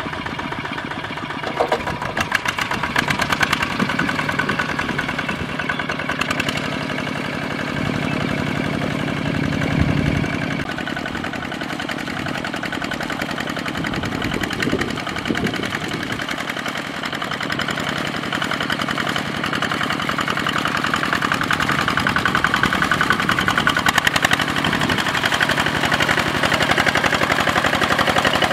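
Kubota ZT155 two-wheel tractor's single-cylinder diesel engine chugging steadily under load as its cage wheels work through a flooded rice paddy, growing somewhat louder in the last third.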